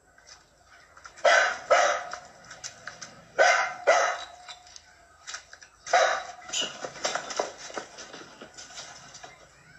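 A small dog barking in short, sharp pairs, about five barks, as it attacks a rat, with smaller knocks and scuffles in between.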